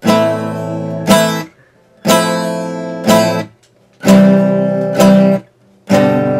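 Acoustic guitar strumming chords in a stop-start pattern: two strums about a second apart, then a short break, repeated three times.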